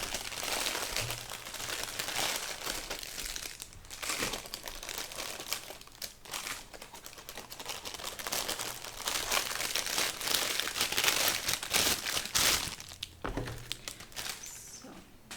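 Packaging crinkling and rustling as it is handled and opened by hand, a dense run of small crackles that grows louder and busier from about nine seconds in before easing off near the end.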